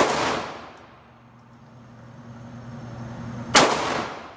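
Two handgun shots about three and a half seconds apart, one at the very start and one near the end, each echoing briefly in an indoor shooting range over a steady low hum.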